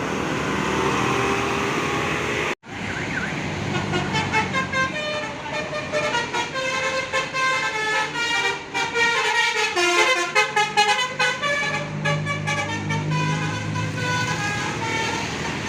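A tour bus's multi-tone 'telolet' musical air horn playing a quick tune of short notes for several seconds, over the bus's engine and traffic noise. The sound drops out for an instant about two and a half seconds in.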